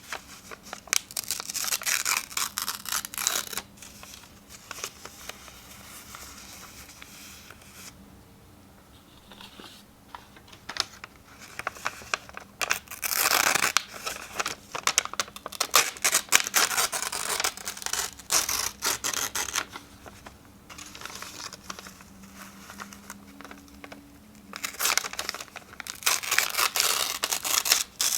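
Sheets of paper being torn and crinkled up close: repeated bursts of ripping, with quieter stretches of softer paper handling about a third of the way in and again after the middle.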